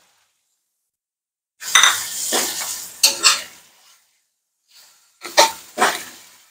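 Metal spatula scraping across an aluminium wok and knocking against it while stir-frying spice paste, lemongrass and leaves. One scrape about a second and a half in, then sharp clinks in two pairs.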